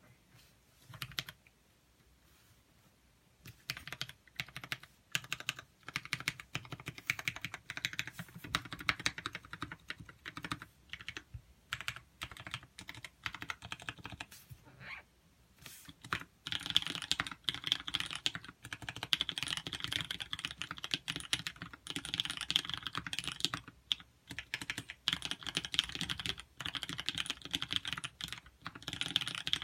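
Typing on a TX-84 custom mechanical keyboard: a few single key clicks, then steady runs of keystrokes that start about three seconds in and grow faster and denser about halfway through, with short pauses.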